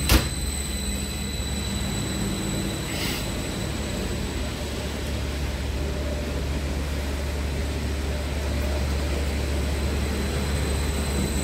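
Go-Ahead Stadler FLIRT electric multiple unit rolling slowly past along the platform, a steady low rumble and hum from its running gear and traction equipment. A single sharp knock comes right at the start.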